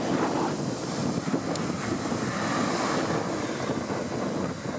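Steady wind buffeting the microphone, with surf breaking on the shore behind it.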